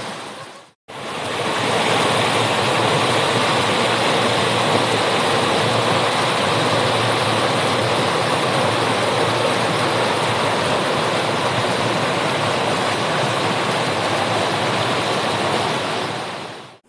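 Steady rushing of a mountain river's water over rocks, an even roar with no pitch. It fades in about a second in after a brief dropout.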